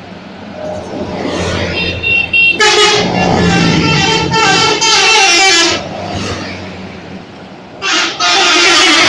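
Tour bus 'telolet' multi-tone air horns playing a quick run of stepping notes in a long blast of about three seconds, then a second blast near the end, over a bus engine running low.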